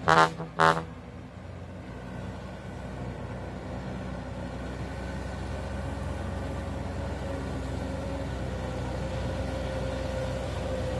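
Two short, loud horn honks, then a truck loaded with oil palm fruit bunches climbing the hill under load, its engine growing steadily louder as it comes closer.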